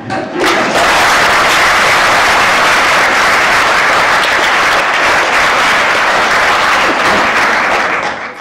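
Audience applauding at the end of a comedy sketch. The clapping breaks out about half a second in, holds loud and steady, and dies away near the end.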